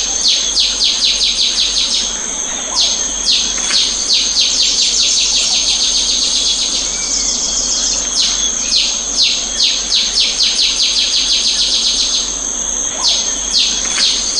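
Field recording of birds and insects: a bird calls in fast runs of sharp, descending notes, about six a second, each run lasting a few seconds with short breaks. Under it runs a steady, high-pitched insect drone.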